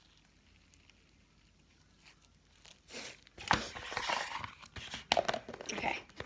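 Quiet room for about three seconds, then loud crinkling, crackling handling noise close to the microphone for about three seconds.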